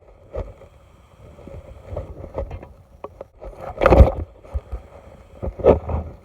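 Scattered knocks and rustles, with a loud bump about four seconds in and another shortly before the end.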